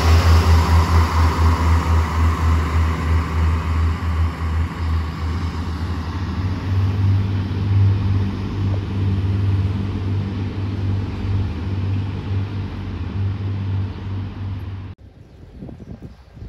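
Renfe Class 592 diesel multiple unit pulling away, its underfloor diesel engines giving a low pulsing drone with rail noise that slowly fades as the train recedes. The sound cuts off suddenly about fifteen seconds in, leaving faint background.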